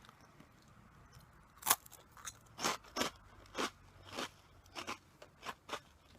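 Close-up biting and chewing of a crunchy snack: one sharp bite a little under two seconds in, then a steady run of crisp crunches as it is chewed, about two a second.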